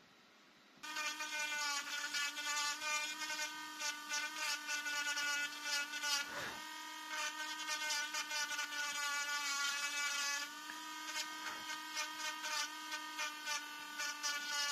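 Pen-sized rotary engraver with a tiny ball burr switching on about a second in and running with a high whine. Its pitch and level waver as the burr cuts into the wooden knife handle.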